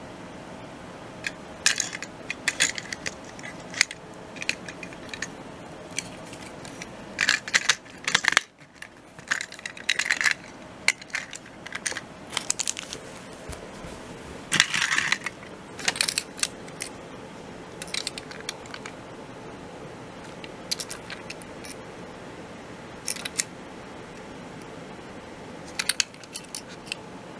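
Hard plastic toy-train parts clicking and clattering as they are handled and snapped together. The sound comes as scattered short clicks with a few longer rattles, over a steady faint hum.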